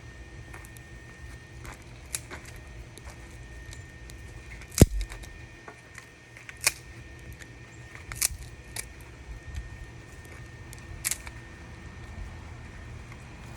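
Work at a coal forge: about six scattered sharp knocks and clicks, the loudest a heavy knock about five seconds in, over a steady low hum.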